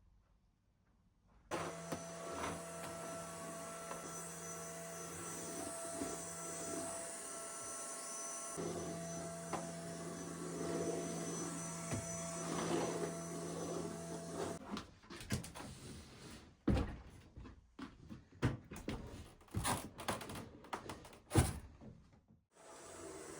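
A small electric motor running steadily with a hum for about thirteen seconds, with a short break partway through. It is followed by a series of separate knocks and clatters.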